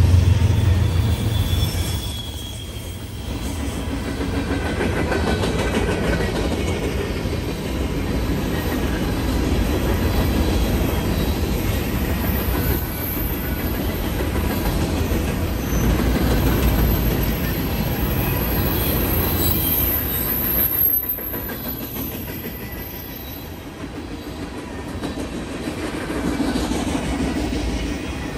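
Freight train cars (tank cars and covered hoppers) rolling past at close range: a steady rumble of steel wheels on rail with clickety-clack over the rail joints and, at times, a faint high wheel squeal. The locomotive's low engine drone fades out in the first two seconds.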